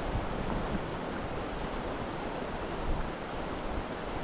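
Steady rush of a mountain river's flowing water, with wind rumbling on the microphone.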